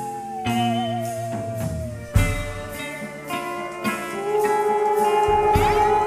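Live band music: a wavering, sliding lead melody over sustained chords, with a couple of drum hits.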